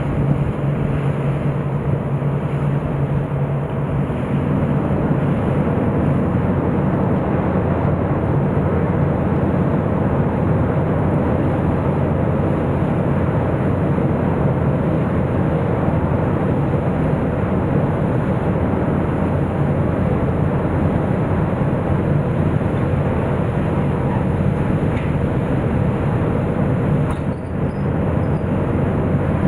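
Steady low rumble and hum of a car ferry's engines and hull, with a constant drone of noise. The level dips briefly near the end.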